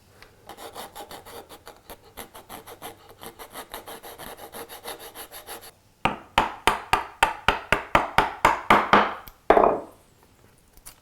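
A hand tool worked back and forth on wood in quick, even strokes, fainter at first. After a short break, louder strokes follow at about four a second, ending with one longer stroke.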